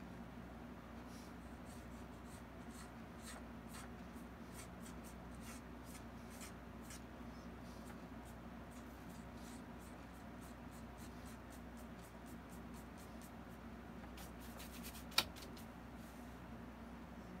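Paintbrush working on a canvas: a run of faint, short scratchy strokes and dabs over a low steady hum, ending in one sharp click near the end.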